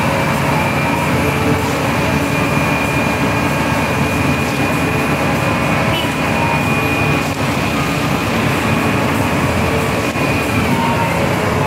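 Everdigm truck-mounted concrete pump working: its heavy diesel engine runs steadily under load with a steady high hydraulic whine, which drops away near the end.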